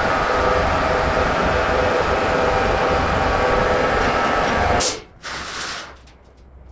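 Workshop air compressor running steadily with a fixed whine, then cutting out abruptly about five seconds in, followed by a short hiss of released air.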